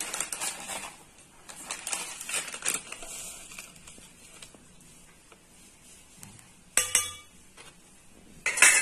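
Stainless steel utensils and bowls clinking and knocking: scattered light clinks in the first few seconds, a sharp metallic knock about seven seconds in, and a louder clatter near the end.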